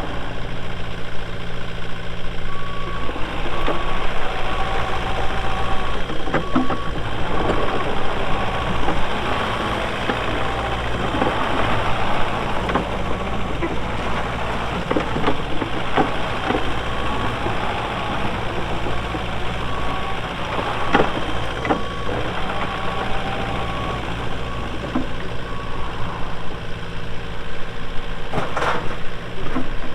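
JCB 85Z-1 excavator's Kohler diesel engine running steadily while its travel alarm beeps repeatedly, a sign the machine is tracking. The beeping starts a few seconds in and stops a few seconds before the end. Sharp knocks come through now and then, the loudest near the end.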